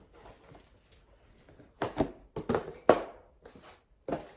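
A dog tugging a tissue out of a cardboard tissue box: a run of short, sharp rustles and knocks starting a little under two seconds in.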